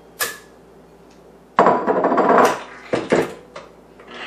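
Clatter at a stand mixer as softened cream cheese goes into its steel bowl: a sharp knock, then about a second of scraping and knocking of a bowl and utensil against the metal bowl, and two more knocks a little later.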